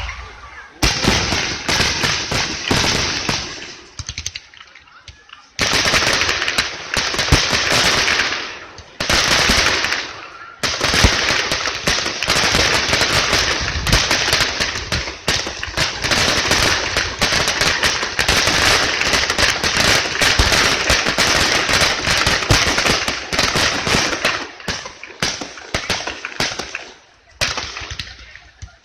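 Fireworks going off in rapid, dense volleys of crackling bangs and pops, with brief lulls about four seconds in, around ten seconds in and near the end.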